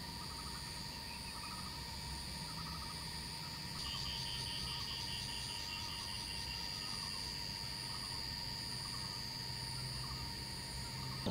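Insect chorus in wet forest: a steady, shrill, high trill with a pulsing buzz above it. A second insect joins about four seconds in with a faster ticking trill, and short chirps repeat underneath.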